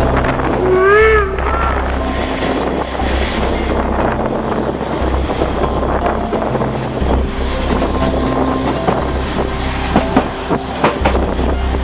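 Narrow-gauge steam train running, heard from an open coach window: a steady rumble of wheels on track with wind on the microphone. About a second in a short tone rises and falls, and near the end comes a cluster of sharp clicks.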